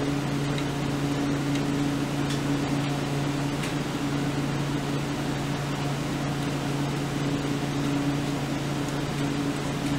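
Steady low machine hum, with a few faint light clicks in the first half.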